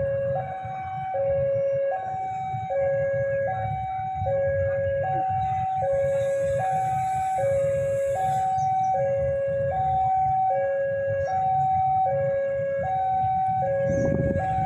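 Railway level-crossing warning alarm sounding a continuous two-tone electronic signal, alternating between a low and a high tone about every 0.8 s, which warns of an approaching train. A low rumble of background traffic runs underneath.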